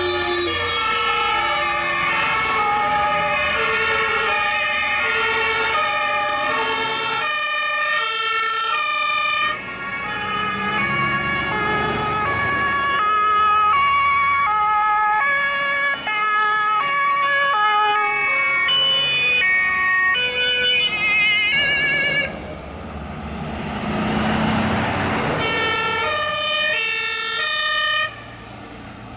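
Several two-tone sirens of German emergency vehicles (Martinshorn) sound together at different pitches as a convoy of ambulances and trucks drives past. Around two-thirds of the way through, the sirens give way briefly to the engine and tyre noise of a passing truck, then sound again. The sound drops off suddenly near the end.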